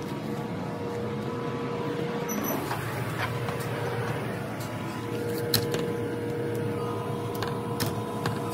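Footsteps across pavement and up a metal grated staircase, with scattered sharp clicks and knocks. Underneath is a steady mechanical hum with a faint steady tone.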